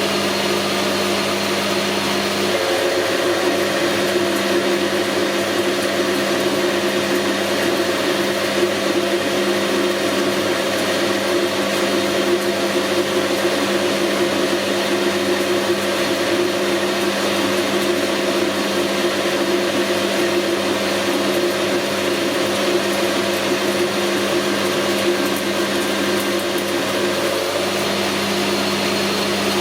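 Metal-working machine tool running steadily with its motor hum. A higher steady tone joins a few seconds in and stops near the end.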